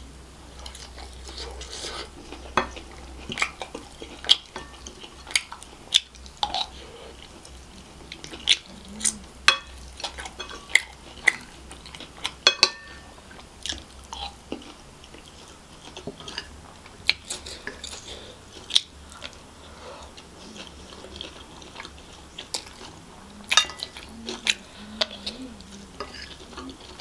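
Close-miked chewing of a mouthful of kottu roti, with many sharp, irregular wet mouth clicks and smacks, and the occasional tap of a wooden spoon on a ceramic plate.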